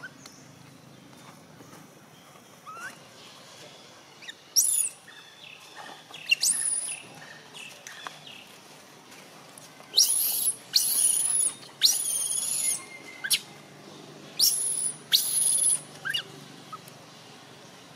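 Baby long-tailed macaque screaming to be nursed: shrill, very high calls, each sweeping sharply up and then held briefly. A couple come a few seconds in, then a quick run of about six loud screams in the second half.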